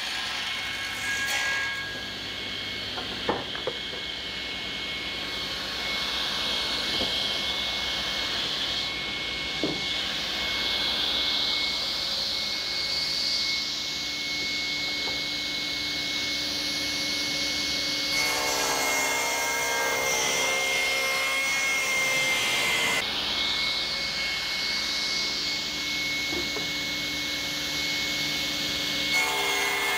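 Sliding table saw running with a steady high whine while its blade rips a beech plank into strips, the cutting noise swelling and easing as the board is pushed through. A few sharp wooden knocks come in the first ten seconds as the board is handled.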